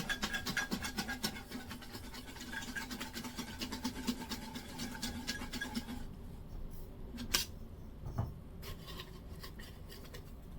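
Paper slips rustling and scraping in a cocktail shaker as they are put in and stirred about, a dense scratchy rattle for about six seconds. It ends in a couple of separate sharp clicks.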